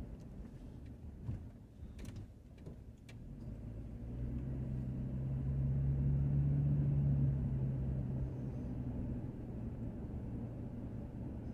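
Car engine and tyre rumble heard from inside the cabin while driving. About four seconds in the engine pulls harder and its low drone grows louder, easing off again toward the end. A few light clicks or knocks come in the first three seconds.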